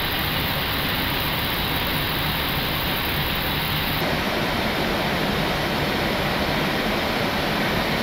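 Steady rushing noise of an airliner in flight, heard on the flight deck: airflow and engine hiss with no distinct tones. The tone of the noise shifts abruptly about four seconds in.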